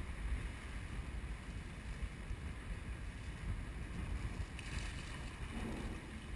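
Wind buffeting the microphone as a low, uneven rumble, with a short burst of water splashing and dripping about three-quarters of the way through as a cast net is hauled up out of the water beside the boat.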